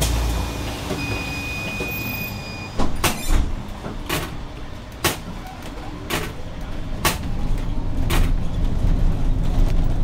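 Inside a Zhongtong LCK6113SHEVG city bus: a steady low rumble, a brief electronic beep about a second in, then a run of sharp clicks about once a second. The rumble grows louder near the end.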